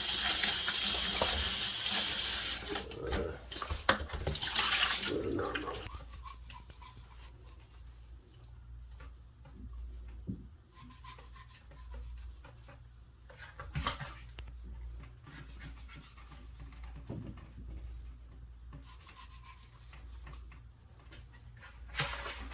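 Tap water running into a sink, shut off about two and a half seconds in. Then faint scattered rubbing and knocking sounds of handling.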